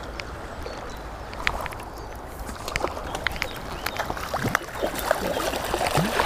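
Flowing river water with splashing as a hooked trout thrashes at the surface by a landing net; the splashes grow more frequent and louder in the second half.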